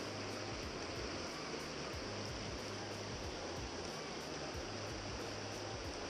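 A small river rushing steadily over rocky rapids.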